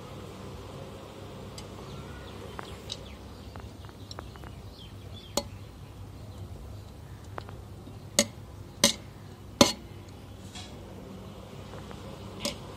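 A metal ladle stirring a large metal pot of poha: light scraping and ticking, with sharp clanks against the pot about five times, three of them close together in the second half, over a steady low background noise.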